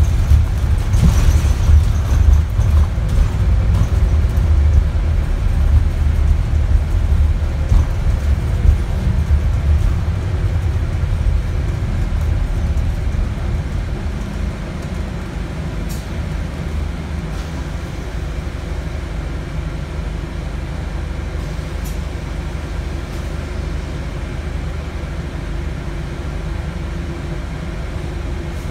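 Scania diesel engine and road noise of an Alexander Dennis Enviro400 MMC double-decker bus, heard inside the passenger cabin. A loud low rumble, with a short hiss about a second in, eases after about twelve seconds into a quieter steady drone.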